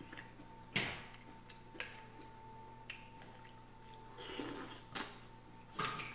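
Seafood shells clicking and cracking as crab and mussels are picked apart by hand: a handful of sharp clicks, the loudest about a second in. There is a brief wet eating sound a little past four seconds in, as food is taken off the fingers.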